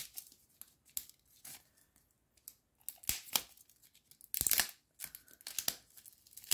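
The printed outer wrapper of a LOL Surprise capsule ball being picked open with a pen tip and fingers: short, irregular scratches, crinkles and tears, the longest tear about four and a half seconds in.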